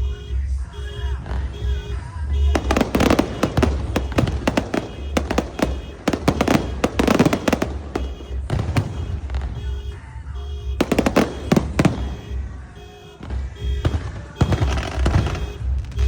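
Fireworks and firecrackers crackling and popping in dense volleys, with loud music with a steady beat throughout.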